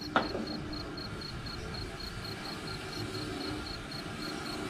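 A cricket chirping at an even rate of about three chirps a second, over a steady background hiss. A single sharp click comes just after the start.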